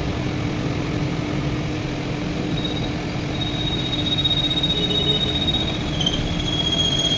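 A machine running steadily with a low rumble, joined about two and a half seconds in by a thin high squeal of metal that grows louder near the end.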